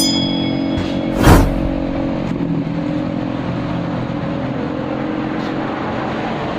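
Steady road-traffic noise with one vehicle rushing past loudly about a second in.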